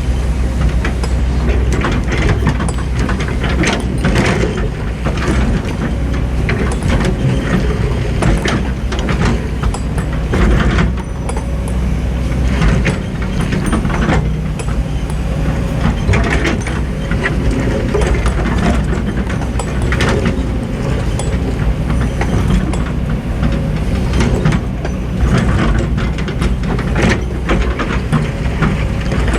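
Diesel engines of hydraulic excavators running under load while they dig and load sand, with frequent knocks and clanks.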